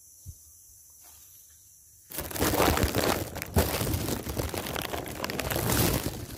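Handling noise from the recording phone: after a faint start, its microphone is rubbed and knocked as it is picked up and moved, a loud, dense crackling rustle starting about two seconds in.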